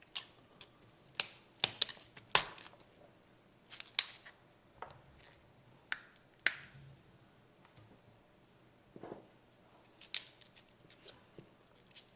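Raw cauliflower being broken apart by hand: the florets and stems give irregular, crisp snaps and cracks, with a soft rustle partway through.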